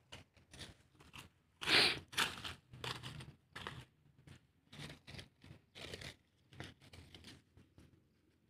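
Dry fallen teak leaves crunching and rustling as the leaf litter is pushed aside, in a string of short, irregular bursts, the loudest about two seconds in.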